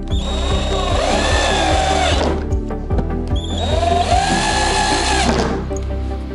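Cordless drill-driver screwing threaded furniture feet into a cabinet panel in two runs, its motor whine rising then falling each time. Background music with a steady beat plays under it.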